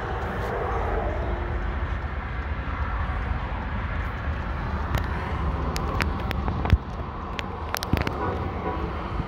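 Freight train cars rolling along the rails: a steady low rumble of wheels on track, with a run of sharp clicks and clanks in the second half.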